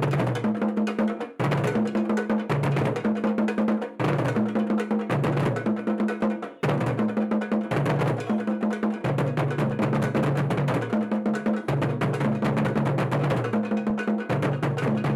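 Music with a fast, busy percussion beat over a repeating bass line.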